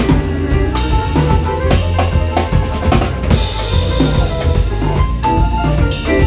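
Jazz quartet playing live, the drum kit to the fore with snare rimshots and bass drum over a steady bass line and sustained pitched notes from the other instruments; a cymbal crash comes about halfway through.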